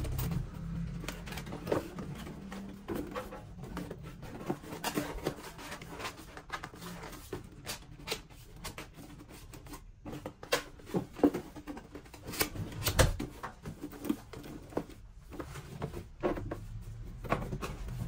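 Cardboard mailer box being folded and assembled by hand on a table: irregular taps, scrapes and creasing clicks of cardboard, busier around the middle.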